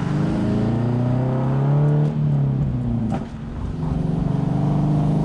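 Subaru BRZ's flat-four boxer engine accelerating through an unequal-length header with no catalytic converter and essentially no muffler. The exhaust rises in pitch for about two seconds, drops at what sounds like a gear change, then pulls on at a steady pitch.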